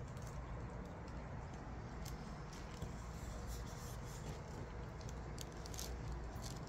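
Faint handling noise from a packaged doll box and the filming device: scattered light clicks and rustles over a steady low background rumble.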